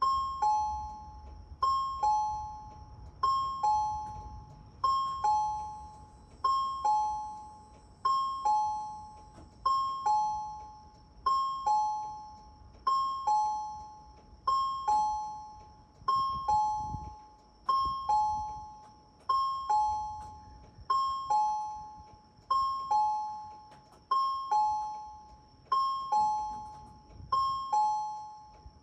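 Resonant Systems turn-warning chime on a Seibu bus: a two-note descending ding-dong, high then low, each note dying away, repeating about every 1.6 seconds to warn that the bus is turning right or left.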